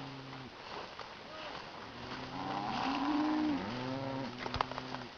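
Cattle mooing: several long, low moos overlap, a couple of them rising and falling in pitch, with a few faint clicks near the end.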